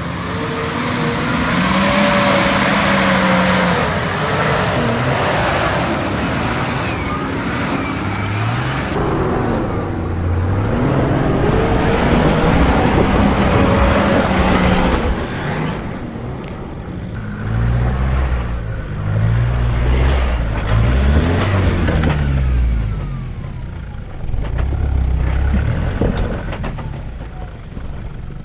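Four-wheel-drive engines revving and labouring as the vehicles crawl up steep rock steps, the pitch rising and falling with the throttle. About halfway through, a lower, uneven engine sound takes over.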